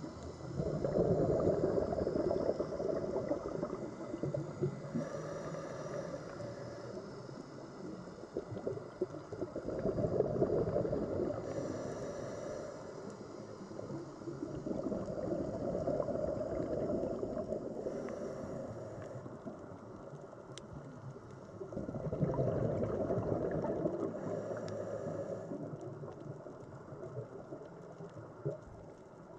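Scuba diver breathing through a regulator underwater: four long gurgles of exhaled bubbles several seconds apart, with a short, higher hiss of inhalation between each.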